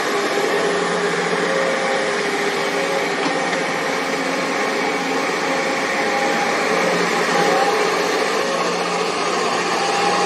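Hydraulic excavator's diesel engine running steadily under digging load, with a steady hiss and a faint whine.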